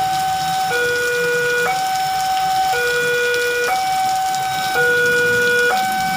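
A two-tone siren alternating between a high and a low note, about one note a second, over the hiss of heavy rain.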